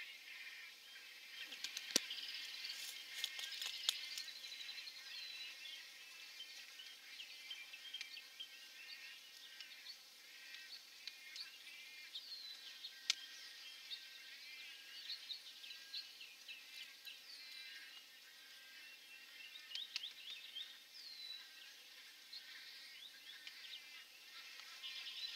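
Faint, dense chorus of bird calls: many short, overlapping chirps and squeaks, with a sharp click about two seconds in and another near the middle.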